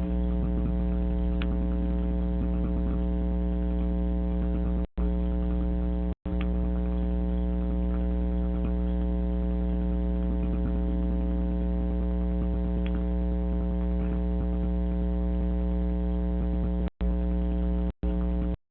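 A steady, low buzzing hum with many even overtones that holds one pitch. It cuts out to silence for an instant about five seconds in, again about a second later, and three times near the end.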